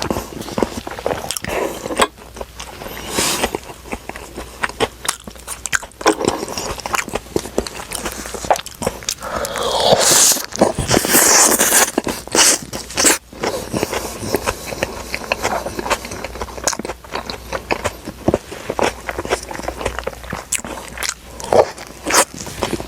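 Close-miked eating of Burger King fast food: biting, crunching and chewing, in many sharp crackles. A louder, longer stretch of crackly noise comes about ten seconds in.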